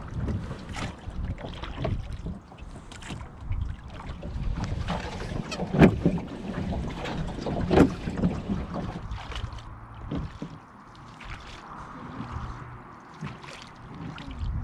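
Wooden oars working in their oarlocks and dipping into the water as a rowboat is rowed, with wind buffeting the microphone. Two louder knocks come about six and eight seconds in.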